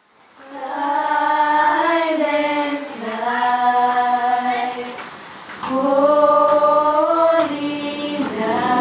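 A small group of girls singing a Christmas carol together, slow held notes in about four phrases with short breaths between, fading in at the start.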